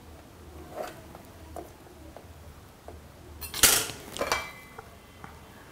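A few faint soft knocks, then a sharp clatter with a short ring about three and a half seconds in and a lighter knock just after: a plastic pizza-cutter wheel being put down beside a pastry board after trimming rolled dough.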